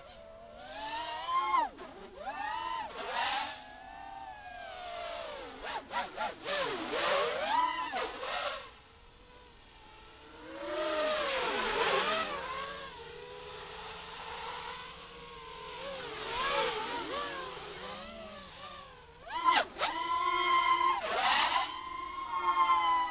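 Krieger 225 quadcopter's four 2205 2000KV brushless motors on 4S spinning HQProp 5x4x3 propellers, whining as it flies. The pitch rises and falls in repeated swoops with throttle changes and fly-bys, dropping to a faint lull about nine seconds in before swelling again.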